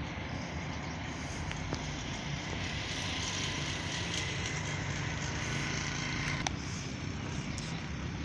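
Steady outdoor street ambience: a faint wash of distant road traffic that swells slightly in the middle.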